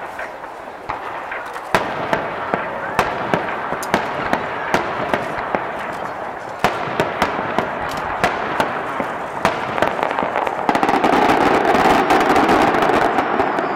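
Aerial fireworks going off: a rapid, irregular series of sharp bangs, several a second, over a steady haze of noise. About eleven seconds in, the sound thickens into a louder, dense continuous wash.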